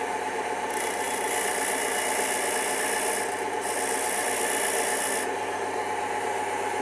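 Wood lathe running with a steady motor hum while a hand tool held on the tool rest rubs against the spinning wood blank. The contact makes a hissing scrape for about four seconds, with a short break about halfway through.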